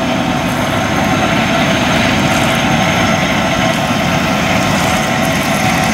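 Steady drone of a river towboat's diesel engines as it passes under way.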